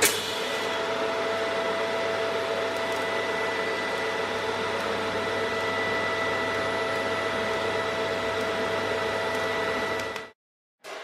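TIG welding arc on thin steel sheet, a steady hiss with a faint even hum, held through one weld run and cutting off about ten seconds in.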